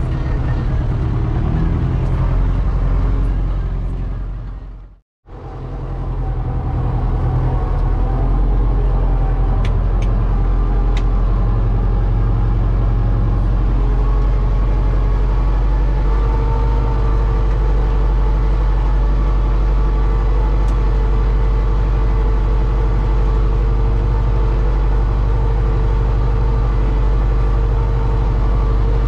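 Kubota tractor's diesel engine running steadily under load, heard from inside the cab, with its PTO-driven orchard sprayer running. The sound fades out to silence and back in about five seconds in, then runs on evenly with a steady whine.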